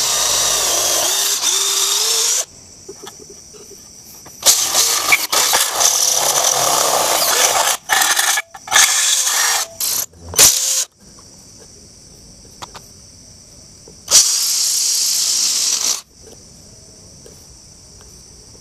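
Cordless drill running on a homemade 24-volt battery pack, in several runs of two to four seconds with short pauses between them. It bores into a steel bar and then into a plastered masonry wall, under load.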